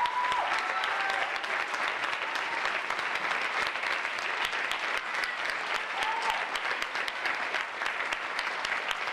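Theatre audience applauding steadily, a dense patter of many hands clapping. A short high call rises from the crowd near the start and again about six seconds in.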